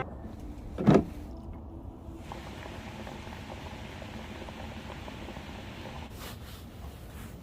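A single dull thump about a second in, followed by a steady low background rumble.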